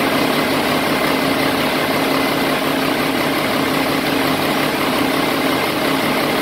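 Mack diesel engine running steadily on a test stand during its run-in (break-in), loud and even with no change in speed.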